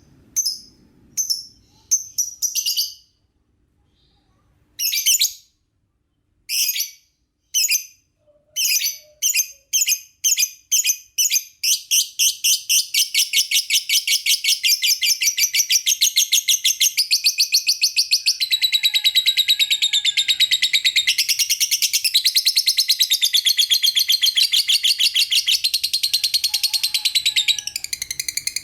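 Lovebird calling with sharp, high chirps. They come singly about a second apart with short pauses, then faster and faster until they run together into a rapid, continuous chatter that lasts through the second half.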